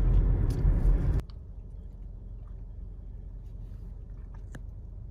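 Road and engine rumble inside a moving car's cabin, cutting off suddenly about a second in to a much quieter steady low hum with a few faint ticks.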